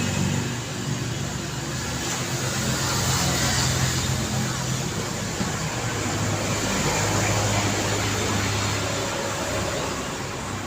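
City street traffic: motor vehicles running and passing over a steady wash of road noise, with a low engine hum that comes and goes.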